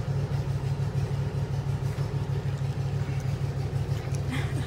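Mother cat purring close up while nursing her newborn kittens: a steady, deep purr with a rapid flutter.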